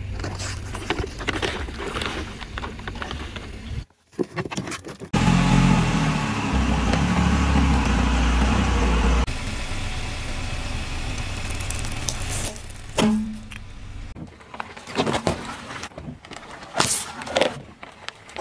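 A car's tyre rolling slowly over objects on pavement, with engine and tyre noise and a few short, sharp cracks in the last few seconds as things give way under the wheel.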